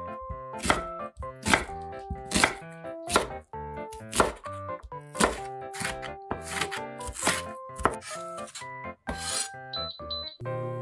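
Chef's knife chopping an onion on a wooden cutting board: about a dozen sharp strikes of the blade through the onion into the board, a little over one a second, with light background music.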